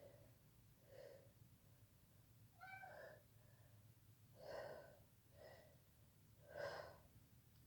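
Faint, short breaths and small gasps from a person during a sneezing fit, about a second apart; one a few seconds in is briefly voiced, like a small catch in the throat before a sneeze.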